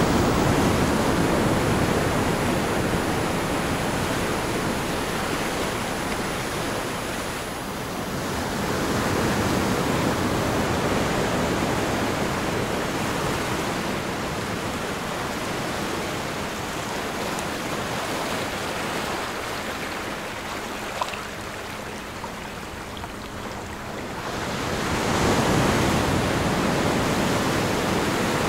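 Ocean surf washing onto a shore, a steady rush that swells and falls back slowly over several seconds at a time. A faint steady high-pitched tone sits above it in the first ten seconds.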